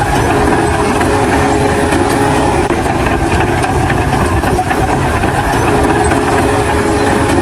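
A heavy engine running steadily and loudly with a dense low rumble and a rattling, clattering texture.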